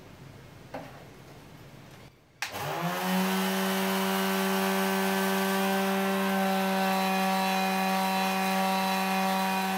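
Electric detail sander, clamped upside down as a makeshift disc sander, switched on about two and a half seconds in. Its motor spins up quickly and then runs at a steady pitch while a small block of wood is sanded on its pad.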